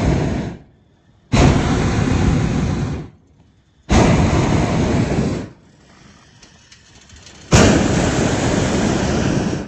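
Hot air balloon's propane burner firing in repeated blasts, each one to two seconds long: one ends about half a second in, then three more follow with short gaps, the last running on past the end.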